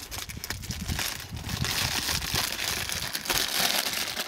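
Wind buffeting the camera's microphone: a rustling, rumbling noise that grows louder about a second and a half in.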